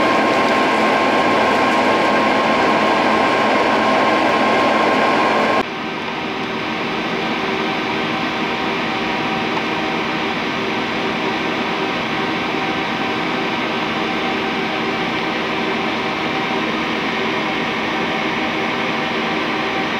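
Steady drone of industrial machinery, with a steady high tone over it. About five and a half seconds in it cuts abruptly to a quieter, duller drone.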